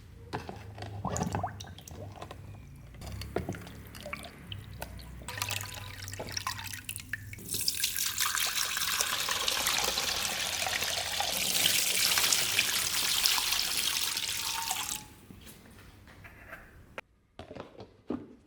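Water running from a tap for about ten seconds, after a few seconds of small knocks and handling clicks, then cut off suddenly near the end.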